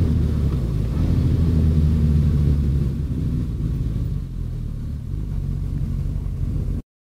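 Suzuki GSX-S1000F's inline-four engine running at low revs as the motorcycle rolls slowly and slows down, getting quieter about three to four seconds in. The sound cuts off abruptly near the end.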